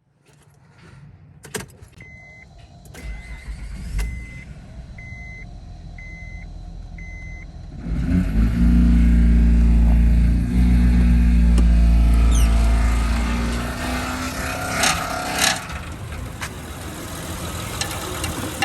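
A short chime beeps six times, about once a second, then the Honda Pilot's V6 engine cranks and starts about eight seconds in, running loud before settling toward idle. The cooling fan of this engine was pushed back into the alternator and engine in a front-end accident, the source of the vehicle's noise.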